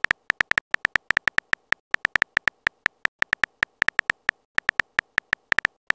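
Keyboard typing sound effects from a texting-story app: a quick, slightly uneven run of short bright ticks, one per typed letter, about six or seven a second with a couple of brief pauses.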